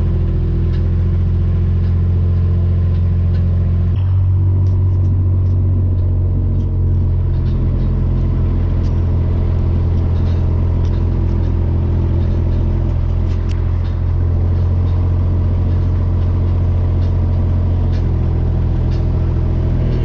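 Kubota side-by-side utility vehicle's engine running steadily at low speed, heard from inside the cab as a loud, deep drone. The engine note shifts slightly about four seconds in, with occasional light rattles over the drive.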